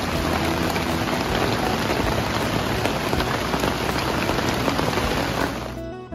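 Rain falling steadily on a tarp shelter, a dense even hiss that cuts off near the end.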